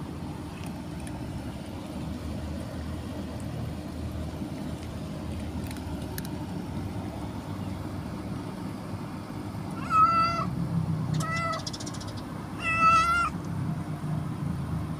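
A cat meowing three times in the last third, short calls a second or so apart, the third the longest, over a steady low background rumble.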